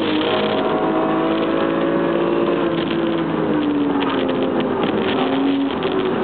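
Hillclimb race car's engine heard from inside the car under way, with wind and road noise. Its note sinks gradually over the first three or four seconds as the car slows for a tight bend, then runs fairly steady.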